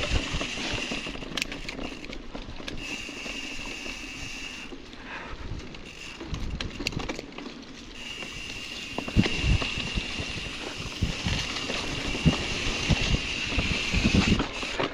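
Mountain bike riding over a rough, bumpy dirt trail: tyre and wind noise with frequent knocks and rattles from the bike. A steady high buzz starts and stops several times.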